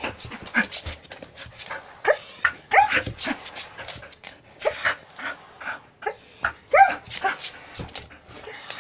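Old Samoyed dog crying out during a seizure caused by a brain tumour: an irregular string of short whimpering yelps that rise and fall in pitch, with clicks and rustling in between as she moves.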